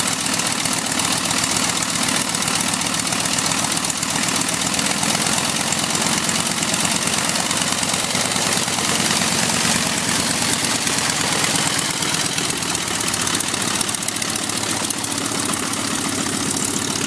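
Fleet Finch biplane's Kinner B-5 five-cylinder radial engine idling steadily with its propeller turning, a rapid, even beat.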